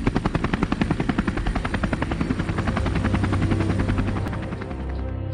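Helicopter rotor chop: a rapid, even beating of about eight beats a second that eases into a steadier low hum near the end.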